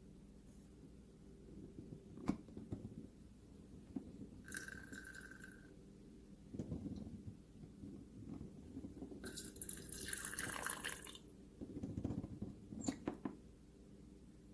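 Water running out of an electric hot water pot in short spells, with a few light clicks.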